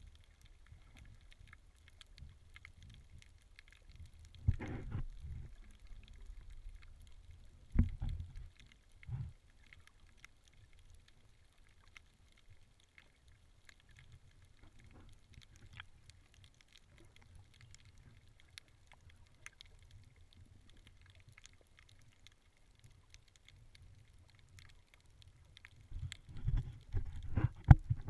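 Muffled underwater sound picked up by a submerged camera: a low rumble of moving water with a few dull thumps, then a burst of splashing and knocks near the end as the camera comes up to the surface.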